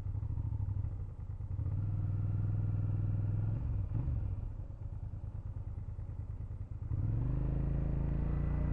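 Suzuki motorcycle engine heard from the saddle while riding at low speed. It starts at a low putter, the throttle opens about two seconds in, it eases off around four seconds, then pulls again and rises in pitch from about seven seconds in.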